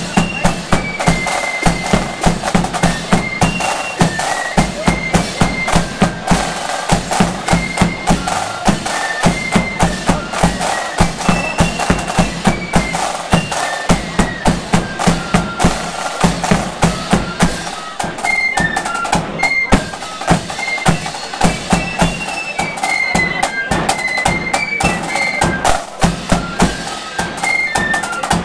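Marching flute band playing a tune: flutes in unison carry a high melody over rattling side drums, a steady bass drum and clashing hand cymbals.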